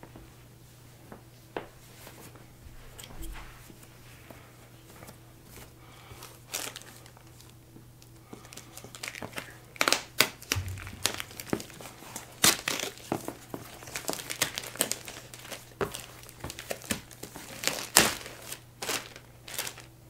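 Clear plastic shrink-wrap being torn and peeled off a cardboard box, crinkling. There are only a few scattered clicks at first, then a dense run of sharp crackles and rustles through the second half.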